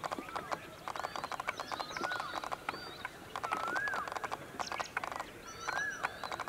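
Indian peafowl (peacock) shivering its fanned train in display, a rattle of rapid clicks in several short bursts. Other birds whistle arched notes over the rattle.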